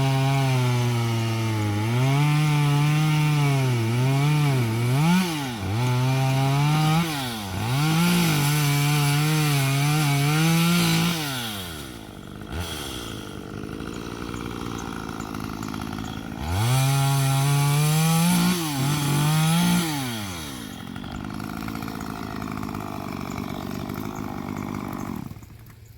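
Chainsaw cutting through a log, its engine running at high speed and dipping in pitch repeatedly under load. It drops to a lower idle twice and falls away near the end.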